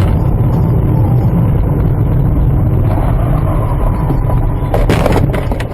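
Steady low rumble of a moving road vehicle, with a short cluster of sharp knocks about five seconds in.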